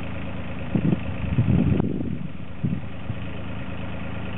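Takeuchi TB016 mini excavator's diesel engine idling steadily, with a few short louder bursts in the first half.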